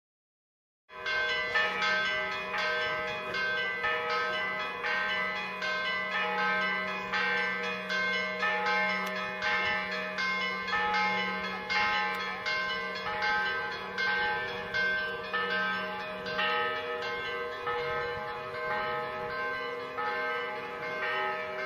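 Church bells ringing, a steady run of repeated strikes at about one and a half a second with the tones hanging over one another. It starts about a second in, after a moment of silence.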